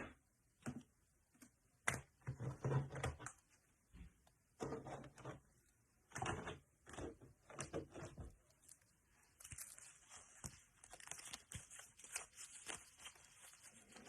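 Trading cards being handled and sorted on a table: scattered light taps, slides and rustles, turning to fainter, busier rustling about two-thirds of the way through.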